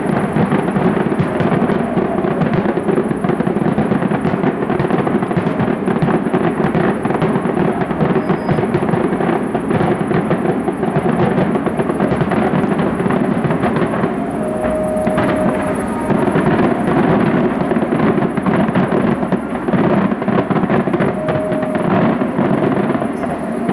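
Aerial fireworks display: a dense, continuous run of bangs and crackling shell bursts overlapping one another.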